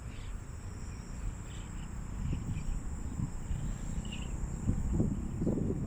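Crickets chirping in a steady high trill, with wind buffeting the microphone in gusts that grow stronger from about two seconds in.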